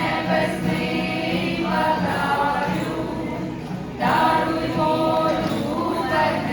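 A choir of voices singing, a new, louder phrase beginning about four seconds in.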